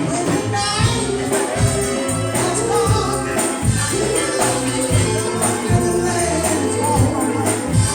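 Live gospel music: several voices singing over a band with a steady bass line and regular drum and percussion beats.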